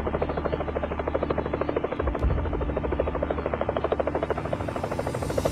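Helicopter rotor blades chopping with a fast, even beat over a steady low engine drone.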